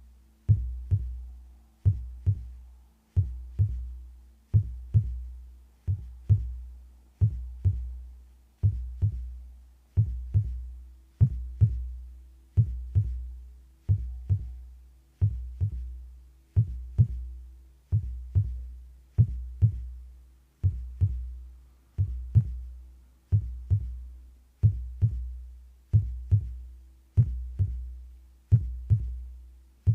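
Human heartbeat amplified close up: a steady, slow lub-dub, each beat a pair of deep thumps, roughly 45 beats a minute.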